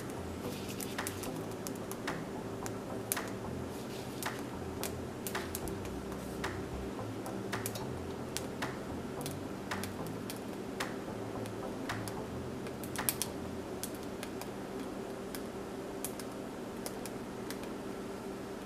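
Light, sharp clicks and taps at an irregular pace, roughly one a second, over a steady low hum.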